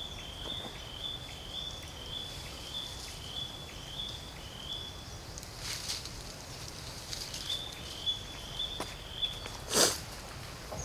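A short, high chirping call repeated about three times a second, dropping out for a couple of seconds past the middle and then resuming. A few brief rustling crackles sound over it, the loudest near the end.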